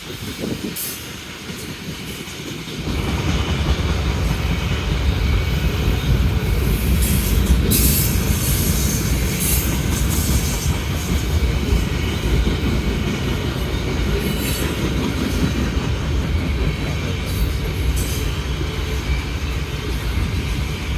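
CSX mixed manifest freight train rolling past, its cars' wheels rumbling steadily on the rails, louder from about three seconds in, with a few brief high wheel squeals along the way.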